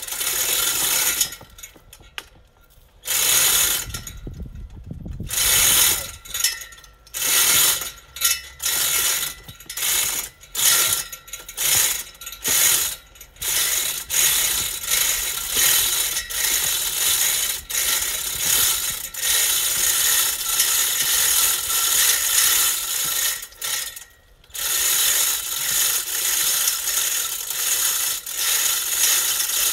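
Manual chain hoist being hauled hand over hand under load, its chain rattling through the hoist as it pulls a hydrangea stump out of the ground. The pulls come in short stop-start bursts at first, then run almost without pause, with one brief break about three-quarters of the way through.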